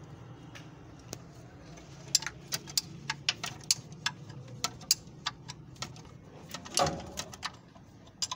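Irregular sharp metallic clicks and clinks, about two a second, of a hand wrench working on bolts at the back of an engine during its removal, with one longer, louder clunk about seven seconds in. A low steady hum runs underneath.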